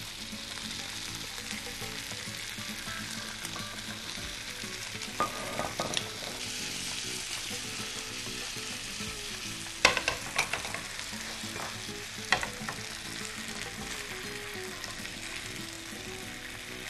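Chicken kofta skewers sizzling in an oiled frying pan with tomato ketchup, a steady frying hiss. A few sharp clinks of a utensil against the pan come around the middle as the skewers are turned.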